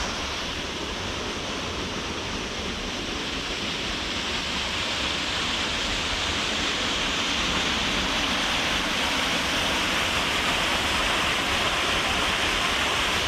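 Steady rushing of water from a small waterfall and its stream, an even hiss that grows a little louder about halfway through.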